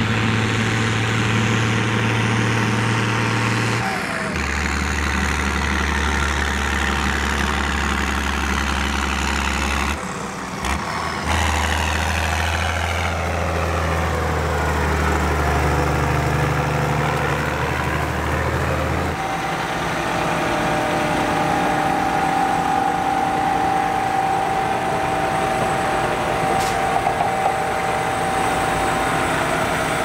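Diesel engines of heavy farm machinery, forage harvester and tractors, running steadily under load during maize chopping. The engine tone changes abruptly a few times, and a steady whine joins about two-thirds of the way through.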